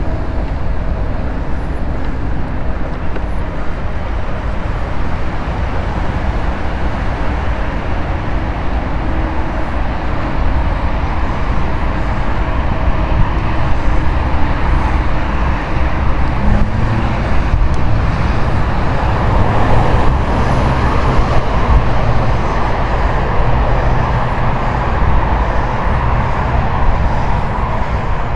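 Steady wind rumble on a handlebar-mounted camera's microphone, with tyre noise from an e-bike rolling along a tarmac path. It grows somewhat louder from about halfway.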